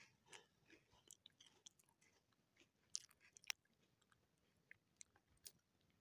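Near silence broken by faint, irregular clicks and crackles, with two sharper ticks about three and three and a half seconds in.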